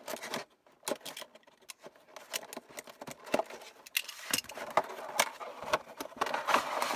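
Cardboard and plastic toy packaging being handled and opened by hand: scattered taps, clicks and scraping as the box end is opened, busier and louder from about halfway.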